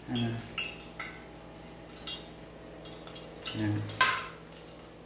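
Cooking oil heating in a non-stick frying pan, crackling and popping in small clicks as a spoon stirs it, with a sharp clack of the spoon against the pan about four seconds in.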